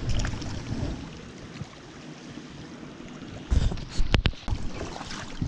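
Flowing stream water and wind buffeting the microphone, with a few sharp knocks and clicks about three and a half to four and a half seconds in.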